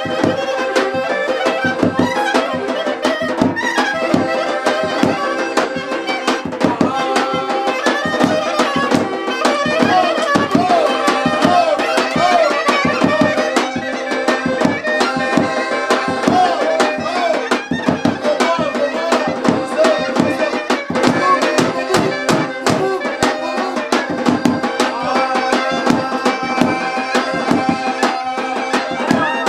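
Instrumental traditional folk dance music: a wavering lead melody over held accompanying notes and a fast, busy hand-drum beat, playing without a break.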